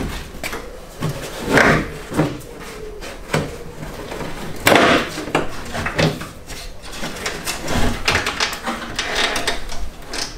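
Front valance of a BMW E30 being pulled off the car: irregular knocks, scrapes and rattles of the loosened body panel, with the longest, loudest scrape about five seconds in.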